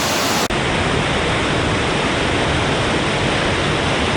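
Steady rushing wind noise on the microphone of a moving motorcycle. About half a second in it drops out for an instant and resumes duller.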